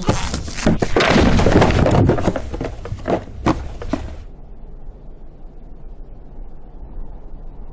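A quick run of thuds, knocks and crashes, a cartoon sound effect of a pile of gift boxes tumbling down, which cuts off suddenly about four seconds in. After that only a faint low hiss remains.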